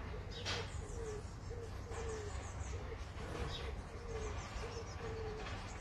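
A bird's repeated hooting call: short low notes, each dipping slightly in pitch, about two a second.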